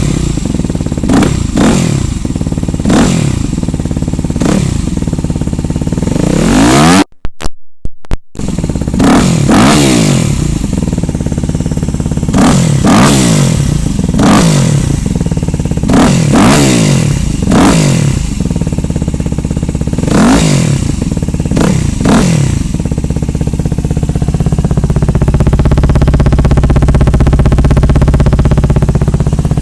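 Yamaha WR250X/R 250 cc single-cylinder four-stroke engine, through an FMF Powercore 4 exhaust, revved in quick throttle blips every second or two, each rising and falling in pitch. It cuts out briefly about seven seconds in. Near the end it settles into a steady run.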